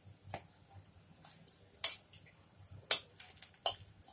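Metal fork clinking and scraping against a nonstick frying pan while slices of bread are turned in hot ghee: several sharp clinks, the loudest three in the second half, over a faint low hum.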